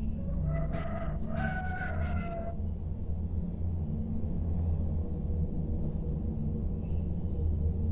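A rooster crowing once, a pitched call of about two seconds that steps up in pitch midway, over a steady low hum.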